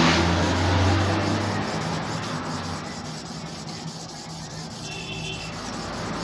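Steady rubbing and scraping on a sharpening stone, a little quieter after the first couple of seconds.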